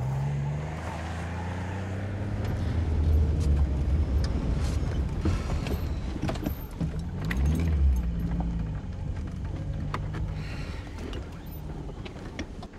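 Car engine running and road noise inside the cabin as the car drives, with the engine pitch rising and falling and scattered sharp clicks.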